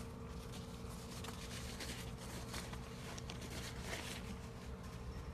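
Quiet room tone with a low steady hum and a few faint scattered clicks and taps.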